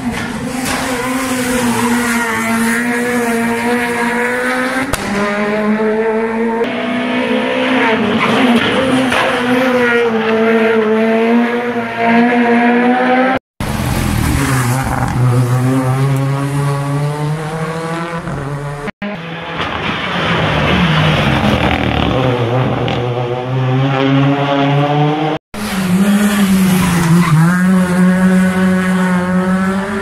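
Rally cars' engines revving hard through a tight corner, one car after another, the pitch dropping and climbing again as each brakes and accelerates out, with tyres squealing. The sound breaks off for an instant three times where the footage cuts.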